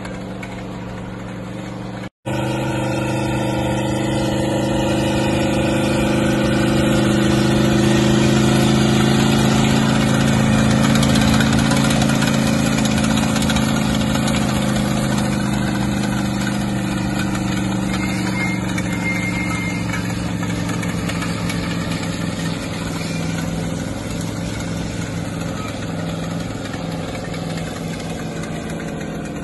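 Linn half-track tractor's engine running steadily under the load of a freighting caboose on tow as it passes, growing louder to a peak about ten seconds in and then slowly fading. The sound drops out for an instant about two seconds in.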